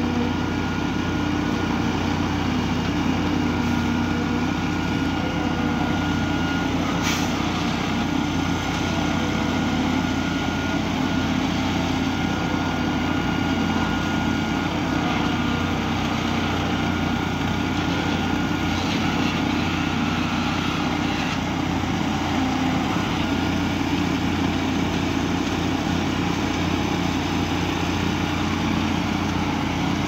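Heavy diesel engine of a truck-mounted concrete pump running steadily while it pumps concrete, with one short sharp click about seven seconds in.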